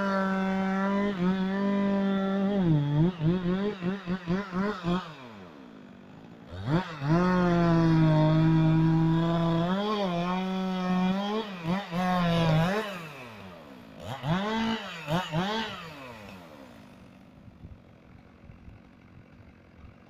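Two-stroke chainsaw running at full throttle in two long runs. Between them the throttle is let off and blipped several times, so the pitch dips and rises quickly. Near the end the engine drops away to a faint low level.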